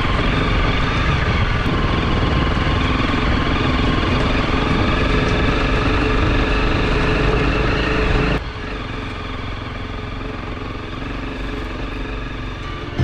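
Honda CRF250 Rally's single-cylinder four-stroke engine running steadily as the bike rides along a rough bush track. About two-thirds of the way through the sound drops suddenly to a quieter, steady level.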